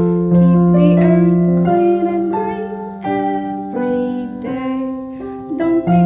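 Background music: a keyboard playing a slow melody of held notes over sustained chords.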